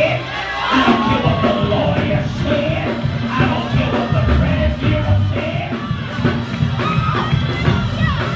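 Loud church praise music with a steady beat, with congregation voices singing and shouting over it.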